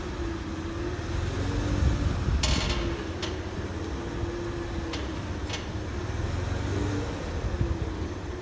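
Mercedes-Benz W163 ML320 making its squeaking and clicking fault noise: a wavering squeak at one pitch comes and goes over a low vehicle rumble. Sharp clicks sound four times, the loudest about two and a half seconds in.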